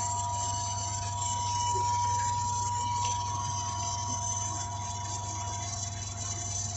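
Sump pump's electric motor running with a steady low hum and a high whine; the whine fades out near the end.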